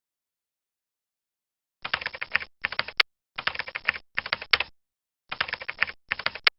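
Fast key typing in short runs of about half a second, coming in pairs, with a sharp click closing every second run; it starts about two seconds in.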